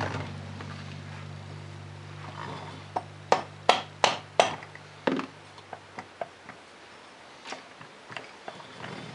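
Hammer tapping the cylinder of a Polaris 400 two-stroke engine to break it loose from the crankcase. There is one sharp knock at the start, a quick run of about six knocks around three to five seconds in, then lighter metal clunks as the loosened cylinder is worked off.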